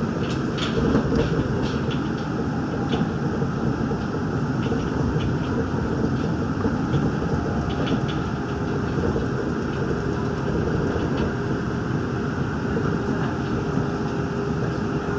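Daegu Metro Line 3 straddle-beam monorail car running steadily along its elevated guideway, heard from inside the car: an even rumble of rubber tyres on the concrete beam with a faint steady whine. Light rattling ticks come and go in the first few seconds.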